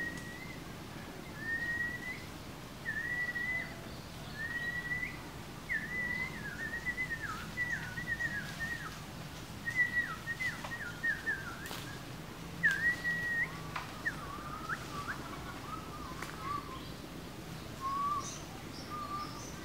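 A series of clear whistled notes: short rising phrases repeated about once a second, then quicker falling notes, and lower, softer notes in the last few seconds.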